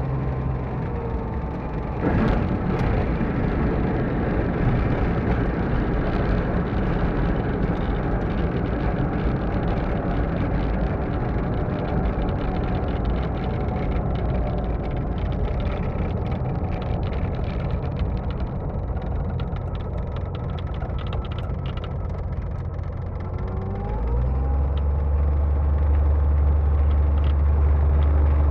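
Jabiru light aircraft engine throttling back, its pitch falling, then a sharp bump about two seconds in as the aircraft touches down, followed by a long rough rumble of rolling along the runway under the engine. Near the end the engine pitch rises and it runs louder and steady as power is added.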